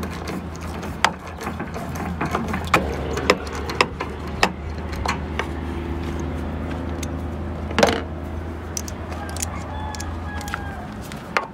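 Scattered light metallic clicks and taps from hand tools and screwdriver bits being handled at the sheet-metal sliding door of a Chevrolet Astro minivan, one sharper knock nearly eight seconds in, over a steady low hum.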